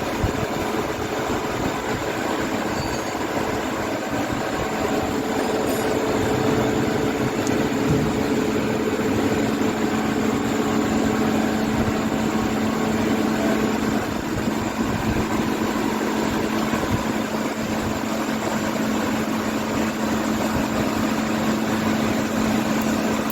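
Steady mechanical running noise with a low, constant hum underneath.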